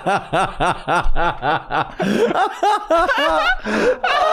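Two men laughing hard: a rapid run of 'ha-ha' pulses, about five a second for the first two seconds, then looser, overlapping laughter.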